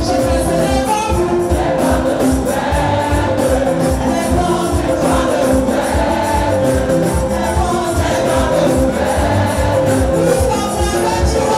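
Live gospel praise music: a choir singing over a band with bass and percussion keeping a steady beat.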